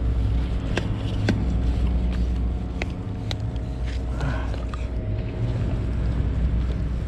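A low, steady rumble, with a few sharp clicks and knocks as a telescopic landing net and fishing rod are handled.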